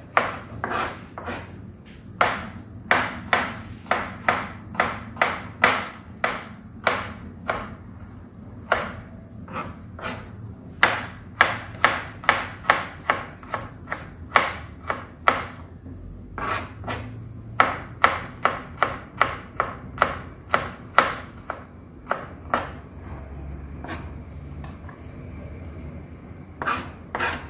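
Kitchen knife slicing garlic cloves on a plastic cutting board: the blade knocks on the board about two times a second, with a few short pauses.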